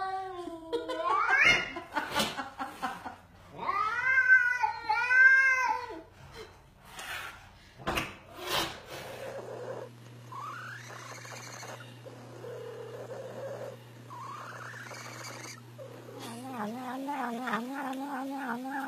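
Domestic cats meowing and yowling in a string of drawn-out calls that waver up and down in pitch, with the longest and loudest a few seconds in and a warbling call near the end.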